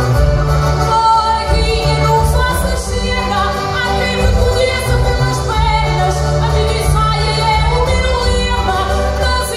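Cantares ao desafio, Minho folk challenge singing: a singer's voice sings a verse over a concertina accompaniment that keeps up steady chords and bass notes.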